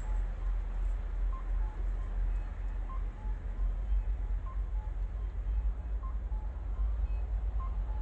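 Wind buffeting the microphone, a steady low rumble. Over it, a faint two-note beep, one note then a slightly lower one, repeats about every second and a half.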